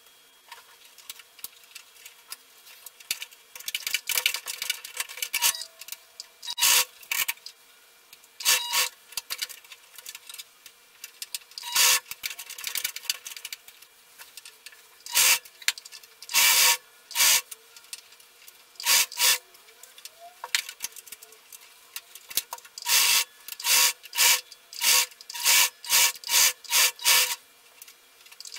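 Singer household sewing machine stitching in short, irregular runs as fabric is fed under the foot, with quieter pauses of fabric handling between runs.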